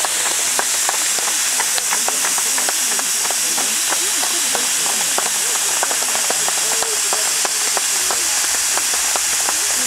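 Pyrotechnic fountains burning with a steady loud hiss and a constant scatter of small crackles, with faint voices in the background.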